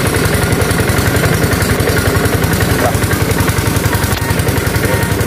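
Impact wrench hammering in a fast, steady rattle as it loosens the bolts holding the regulator on a Hitachi EX200 excavator's main hydraulic pump.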